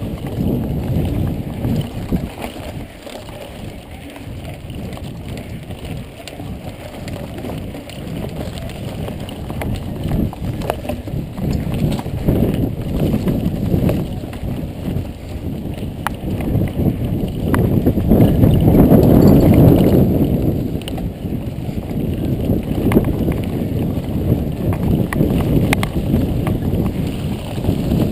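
Mountain bike riding fast over a rough dirt trail: wind rushing over the camera microphone, tyre noise, and the knocks and rattles of the bike over bumps. It swells louder for a couple of seconds past halfway.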